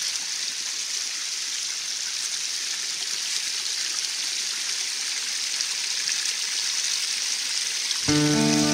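Steady rush of flowing water from a stream. Acoustic guitar music comes in near the end.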